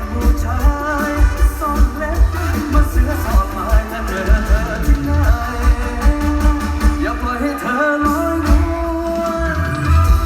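Live mor lam music over a loud concert sound system: a wavering sung melody over a heavy, steady bass beat.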